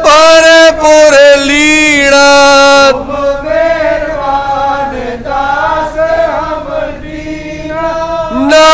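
Sikh devotional chanting with long, held notes. It drops to a softer level about three seconds in and comes back at full strength just before the end.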